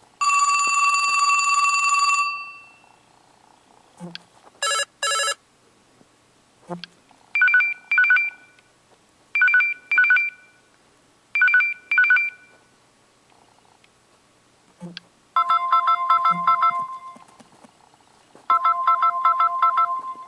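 A TracFone cell phone playing through its built-in electronic ringtones one after another. First comes a two-second steady beep, then two quick chirps, then three double-beep rings about two seconds apart, then two bursts of a fast trilling ring near the end. Small soft clicks fall between the tones.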